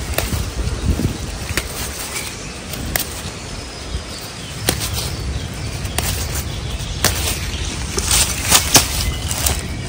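Rustling of undergrowth and the sharp snaps of garlic mustard stems being picked by hand. A snap comes every second or two, with a quick run of several near the end, over a low rumble.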